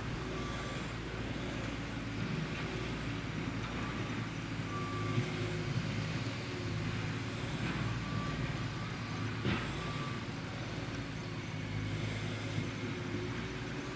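A steady low motor drone, with a faint short high beep every few seconds and a couple of sharp clicks.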